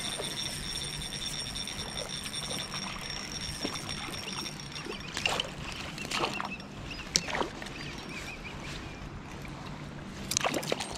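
A steady high whine for about the first five seconds, then water splashing and sloshing at the surface in several short bursts, the loudest near the end.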